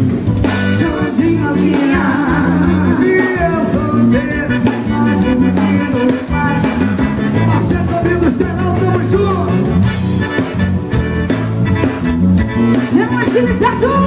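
Live forró band playing, the accordion out front over electric guitar, keyboard, bass and a steady beat.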